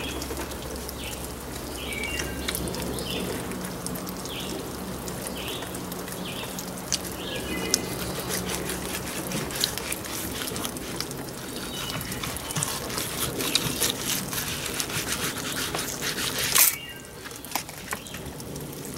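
Knife slicing between the skin and flesh of a raw striped bass fillet on a wooden cutting board, making wet crackling and scraping that grows denser, then one sharp knock near the end.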